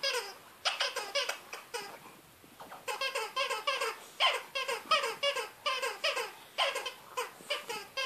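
A rubber spider dog toy squeaking over and over as a French bulldog chews on it. The squeaks are short and fall in pitch, coming about three a second, with a pause of about a second before the middle.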